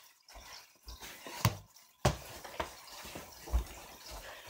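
Several short, sharp knocks, the two loudest about a second and a half and two seconds in, with fainter taps between.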